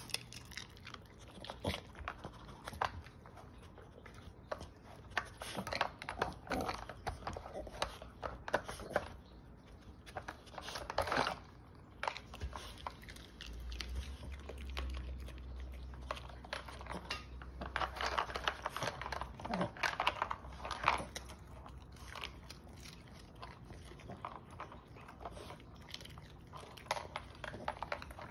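Irregular plastic clicks and knocks of a dog treat puzzle's flip lids and sliding blocks being nosed and pawed open, mixed with a small dog chewing and crunching treats. There are clusters of clicks about eleven seconds in and again around eighteen to twenty seconds, and a low rumble midway.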